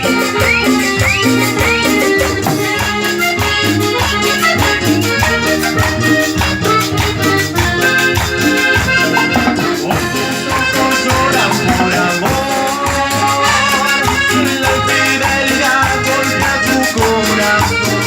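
Live cumbia band playing an instrumental stretch, pitched melody lines over bass and a steady dance beat with a shaken percussion rhythm.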